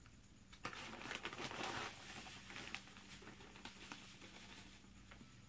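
Clear plastic bag crinkling and rustling as scoops of potassium nitrate are poured into it from a plastic measuring cup and the bag is handled. The rustling starts about half a second in.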